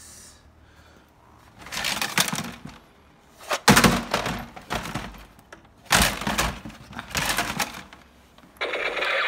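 Hard objects clattering and rustling as they are handled, in about five separate noisy bursts with quiet gaps between them.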